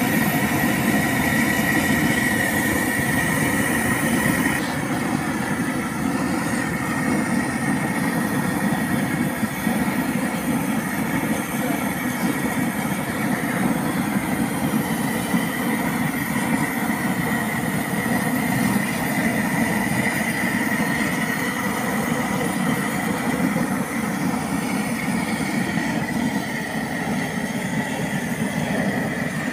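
Gas torch burning with a steady rushing roar as its flame singes the hide and bristles of a slaughtered pig; the hiss eases slightly about four and a half seconds in.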